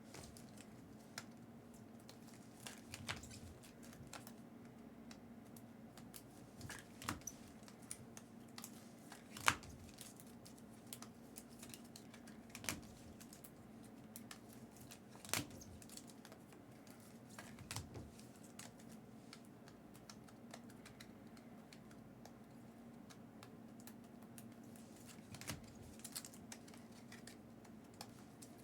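Trading cards and their plastic sleeves being handled and sorted on a table: scattered light clicks, taps and rustles, a few sharper ones, over a steady low hum.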